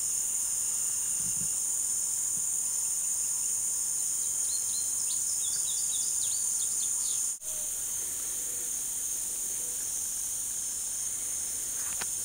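Dense, steady high-pitched chorus of insects in summer woodland, with a short run of bird chirps in the middle; the chorus breaks off for an instant about seven seconds in.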